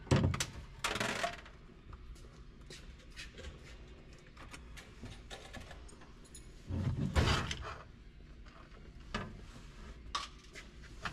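Small metal hardware and hand tools being handled, clinking and clattering, with louder rattling at the start and again about seven seconds in, and scattered light ticks between.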